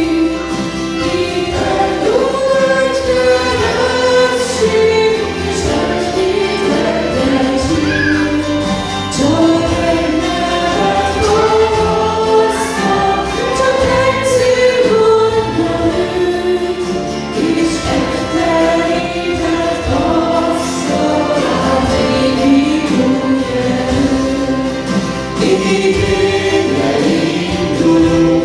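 Live Christian praise song: two women singing the melody together into microphones, backed by a small band with strummed acoustic guitar and bass guitar.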